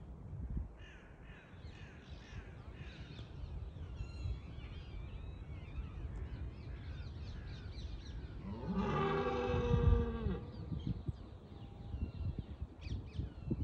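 A rutting red deer stag gives one deep, harsh roar lasting about a second and a half, a little past the middle. It is a threat call aimed at a rival stag. Small birds chirp briefly in the first few seconds.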